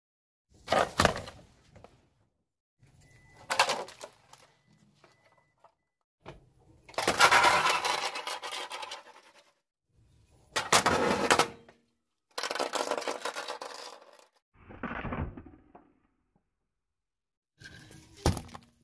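A car tyre rolling onto and crushing a run of different objects, heard as about seven separate bursts of cracking and crunching with short silences between. Among them are a plastic bathroom scale partway through and a turnip near the end, which gives a single sharp crack.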